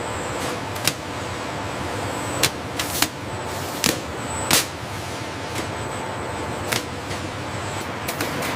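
Steady factory machinery noise with a faint high whine, broken by several sharp metallic clicks and knocks of parts being handled.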